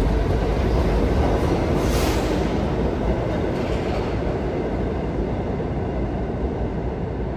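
R68A New York City subway train running on the rails, a steady rumble that slowly grows quieter, with a brief higher hiss about two seconds in.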